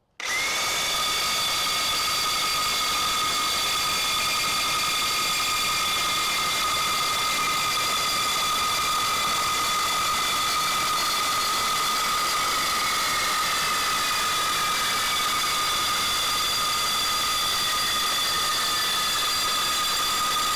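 Reciprocating saw with a 9-inch Milwaukee Torch Nitrus Carbide blade cutting through quarter-inch-thick steel pipe: the motor runs and the blade rasps through the metal steadily, with high ringing tones over the rasp. It starts abruptly, and one of the tones slowly drops in pitch in the second half.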